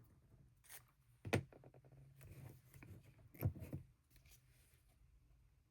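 Small objects handled on a work table: light rustling with a few sharp clicks and taps, the loudest about a second and a half in and again about three and a half seconds in.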